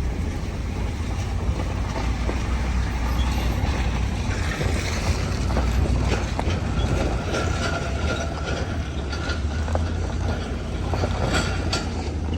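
Vehicle towing a trailer over rough ground: a steady low engine drone with continual rattling and clanking knocks. A thin steady squeal comes in partway through and fades near the end.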